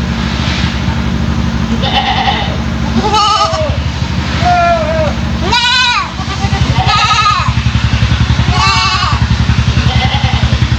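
A young kid goat, about three months old, bleating over and over in short calls that each rise and fall in pitch, roughly one a second, in a voice unlike an ordinary goat's. A steady low hum runs underneath and begins to pulse about halfway through.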